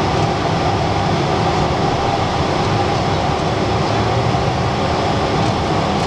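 Steady in-flight cockpit noise of a Cessna Citation Latitude business jet: airflow over the fuselage and the hum of its Pratt & Whitney Canada PW306D1 turbofans, an even rumble heard from inside the cockpit.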